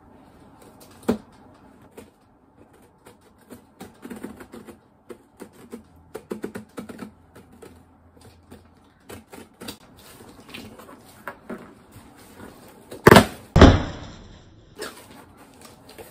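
Scissors scraping and cutting through the packing tape on a cardboard box: a run of small scratches, clicks and taps. There is a sharp knock about a second in, and two loud thumps close together near the end as the box is handled.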